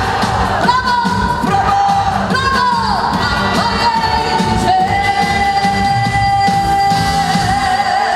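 Live trot song, a singer with band accompaniment over a steady beat, the melody ending on one long held note over the last three seconds.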